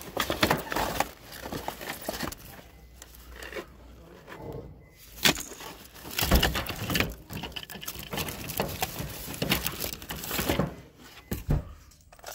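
Rummaging through rubbish in a bin: irregular rustling of plastic bags and the knocking and clattering of discarded items being shifted.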